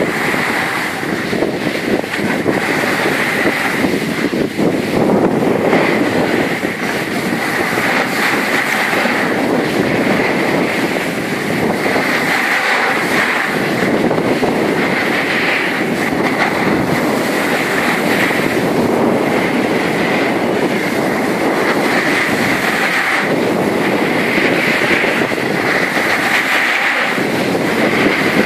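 Steady scraping rush of edges sliding over packed, groomed snow during a run down a piste, with wind buffeting the microphone; the noise swells and eases in waves every few seconds.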